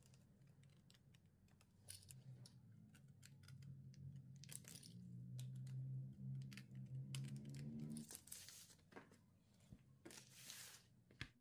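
Faint handling noises: short clicks and a few crinkling, tearing noises of paper or plastic being handled, over a low hum.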